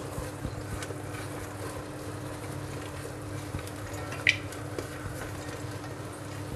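Chopped vegetables being scraped off a steel plate with a spatula into a pot of cooking masala: quiet, soft rustling with faint ticks and one short, sharper scrape about four seconds in, over a steady low hum.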